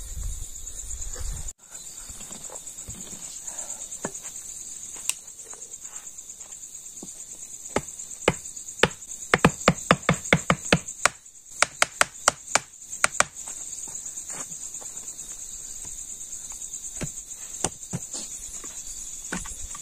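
Steady high chirring of crickets. Over it comes a run of sharp knocks, scattered at first, then a quick series of them in the middle, then a few more near the end.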